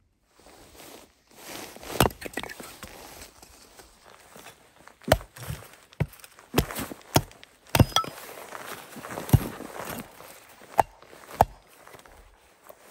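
Splitting a short log with a hatchet: about ten sharp knocks at uneven intervals, starting about two seconds in, as the blade is driven down into the wood. Snow and clothing rustle and crunch between the knocks.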